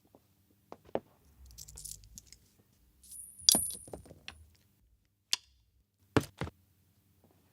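Small metal objects clinking and tapping: a few light knocks, one loud bright ringing clink about halfway through, then a few sharp clicks.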